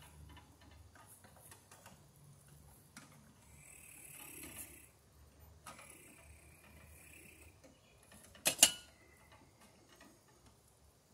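Faint rustling and small ticks of 10-gauge electrical wire being pushed up into an RV receptacle box, with two sharp knocks close together about eight and a half seconds in.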